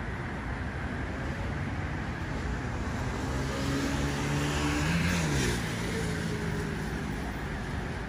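A motor vehicle passing close by over a steady hum of traffic. Its engine note climbs as it approaches, is loudest about five seconds in, then drops in pitch as it goes past.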